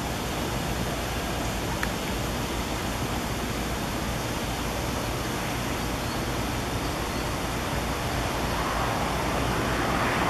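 Steady rushing noise of jet engines and weather at the microphone. A twin-engine regional jet on landing approach gets louder near the end.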